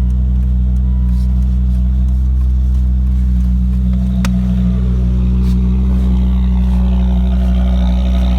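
2006 Volvo S40 T5's turbocharged inline-five engine idling steadily just after being started. A single sharp click about four seconds in.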